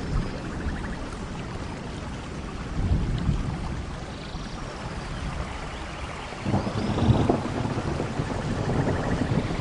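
Steady tropical rain with low rolls of thunder, the loudest one building about two-thirds of the way through, and faint bird calls above the rain.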